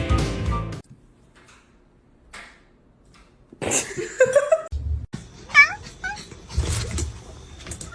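Background music stops about a second in; after a quiet gap, a cat meows: a longer wavering call near the middle, then a shorter meow about a second later, with a few knocks.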